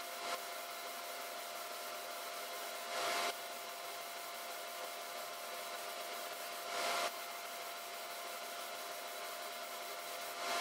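Gravity-feed compressed-air spray gun spraying paint in short trigger pulls, each a hiss of about half a second, coming every three to four seconds, over a steady fan hum with a faint whine in it.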